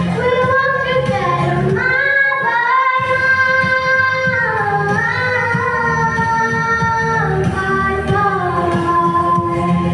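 Children singing a melodic song over musical accompaniment, with long held notes that slide from pitch to pitch.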